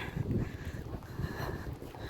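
Wind buffeting the microphone: an uneven low rumble with a faint hiss behind it.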